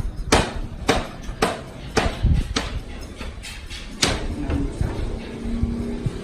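A regular series of sharp knocks or bangs, about two a second, stopping about four seconds in.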